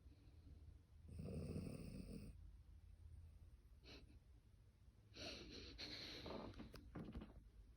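Sleeping boxer dog snoring, twice: a short snore about a second in and a longer one about five seconds in.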